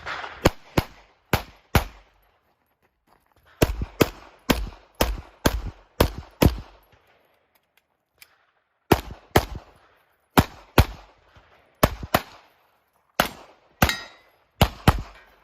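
Glock 34 9mm pistol being fired rapidly through a stage, mostly in quick pairs of shots, with two pauses of about two seconds between strings. Near the end one shot is followed by a brief metallic ring.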